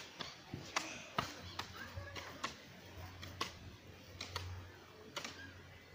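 Long-handled hoes chopping into grass and soil, heard as irregular sharp knocks, roughly one or two a second, with faint voices behind.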